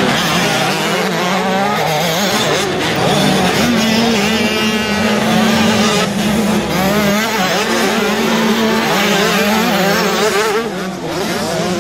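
Several motocross bikes racing on a dirt track, their engines revving up and down through the corners and overlapping, one engine holding a steadier note for stretches.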